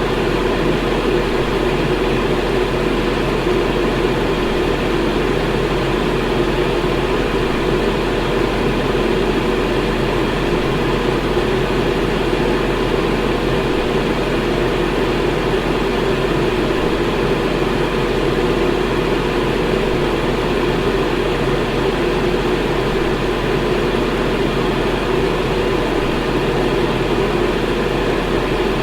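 Electric fan running steadily: an even, unbroken rushing noise, strongest in the low-middle range, with a faint constant low hum underneath.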